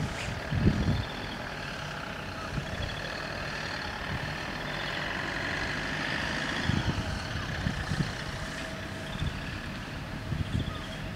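Level crossing warning bells ringing steadily while the barriers are lowered, with a few short low rumbles.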